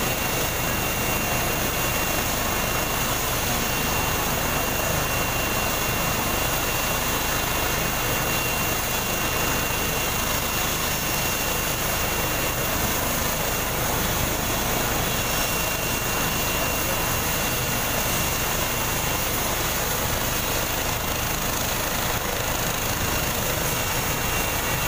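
Helicopter running on the ground, its turbine engine and rotor making a steady rushing noise with a thin, constant high-pitched whine.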